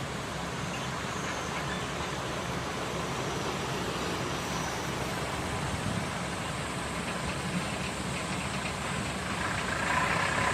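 A 92YG round baler running with the engine that drives it, making steady machine noise over a low engine hum. It grows a little louder near the end.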